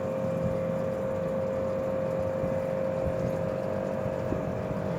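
Steady machine-like hum with a constant mid-pitched tone, and a few faint knocks.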